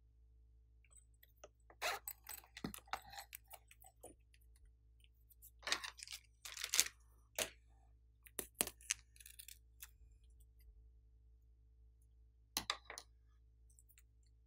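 Scattered short crinkles and clicks of plastic being handled, and scissors snipping the tip off a plastic piping bag of glitter slime, over a faint steady hum.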